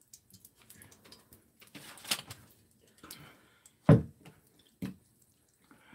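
Thick kimchi pancake batter being stirred in a glass mixing bowl with a wooden spatula, giving small wet clicks and scrapes. A loud dull thump comes just before four seconds in, and a smaller one about a second later.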